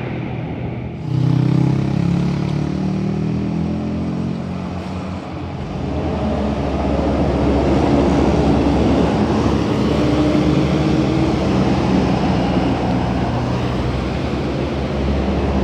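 Road vehicle engines passing on the road: one comes in suddenly about a second in and climbs slightly in pitch as it accelerates, then a heavier, steady engine drone takes over from about six seconds in.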